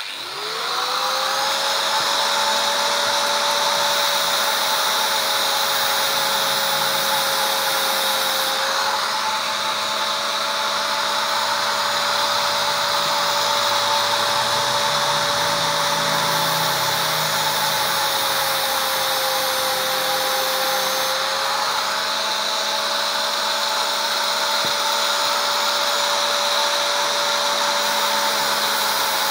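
Electric angle grinder switched on, spinning up within the first second to a steady high whine. It then grinds the cutters of a chainsaw chain, and its pitch sags slightly twice before picking back up.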